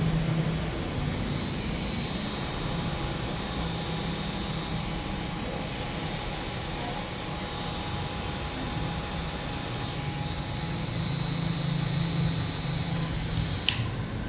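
Handheld hot-air blower running steadily, its fan giving a whooshing rush with a low hum. A single sharp click comes near the end.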